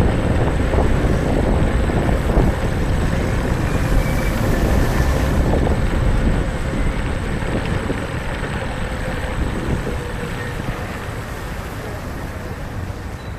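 Xiaomi electric kick scooter riding along a city street: wind rushing over the microphone and the rumble of the small wheels on the pavement, with a faint steady whine. The noise eases off gradually over the last several seconds.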